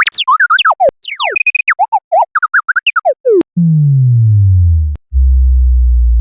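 Synthesized sci-fi computer bleeps: quick rising and falling electronic chirps for about three seconds. Then a low tone slides steadily downward, and after a brief break a steady low hum follows.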